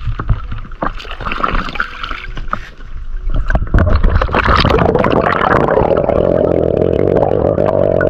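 Water splashing and gurgling around a waterproof camera as a swimmer moves at the river surface, with scattered knocks. About halfway through the camera goes under, and the sound turns into a loud, steady, muffled underwater rush.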